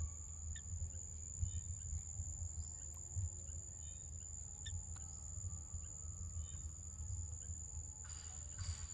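Forest ambience: a steady high insect drone with faint, scattered bird chirps over a low, uneven rumble. Near the end a rasping, pulsing insect call starts, about two pulses a second.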